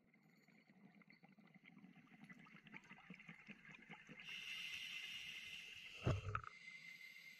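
Underwater sound through a dive camera housing: a scuba regulator's hiss as a breath is drawn, then a short low burst of exhaled bubbles about six seconds in, over a steady scatter of faint crackling clicks.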